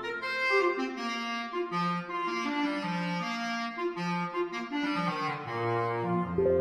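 Background instrumental music: a melody of held notes over a bass line that drops out for parts of the passage.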